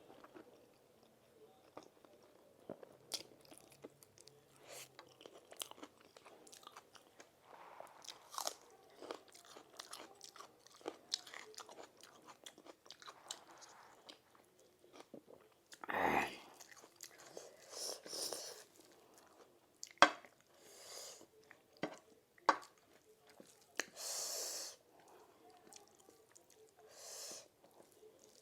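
A person chewing and biting food with mouth clicks and crunches, broken by a few louder, longer noisy bursts in the second half.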